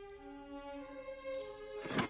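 Orchestral film score with bowed strings holding long notes that change pitch a few times. A short burst of noise comes near the end and is the loudest moment.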